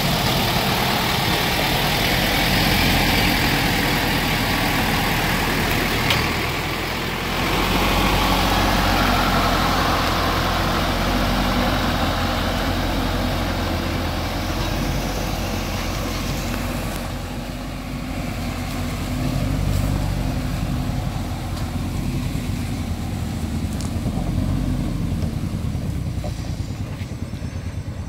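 Diesel engine of a loaded two-axle logging truck running slowly and steadily as the truck creeps down a steep dirt track and rolls past close by.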